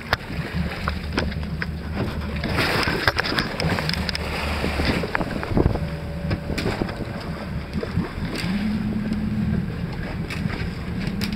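Fishing boat's engine running steadily with a low hum, under wind on the microphone and sea noise, with scattered knocks and clicks on deck.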